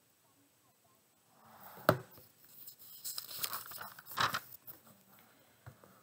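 Pages of a book being turned by hand: paper rustling and crinkling, with a sharp tap about two seconds in and a second spell of rustling around four seconds in.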